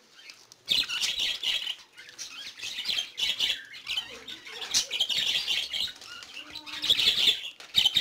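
A flock of budgerigars chattering and chirping, a dense run of rapid warbling calls that starts after a brief quiet less than a second in.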